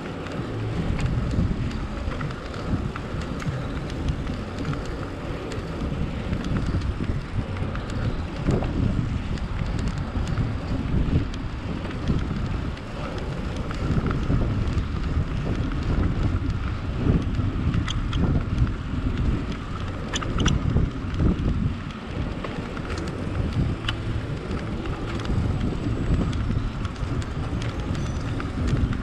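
Wind buffeting the microphone in uneven gusts while riding along, a dense low rush with no clear engine note.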